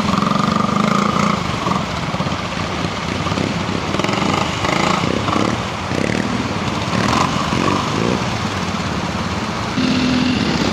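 Velocette trials motorcycle engine running at low revs, the throttle opening and easing off as it picks its way over rough ground. Near the end the sound changes abruptly to a different engine note.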